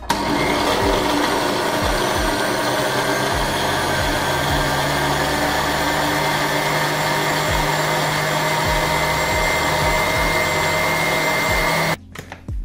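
Countertop jug blender running at a steady speed, puréeing tofu and oat drink into a smooth liquid; it switches off suddenly near the end.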